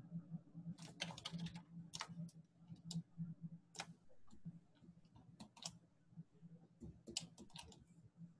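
Faint computer mouse and keyboard clicks: a quick run of clicks about a second in, single clicks scattered through, and another run near the end, over a steady low hum.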